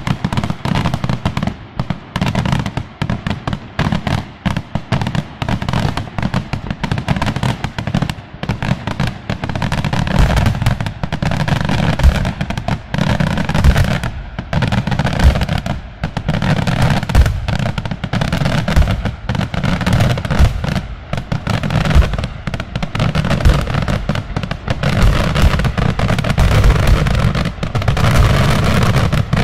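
Luigi Di Matteo fireworks display: a dense, continuous barrage of rapid bangs from shells and ground-fired comets bursting one on another, growing louder and thicker about a third of the way in.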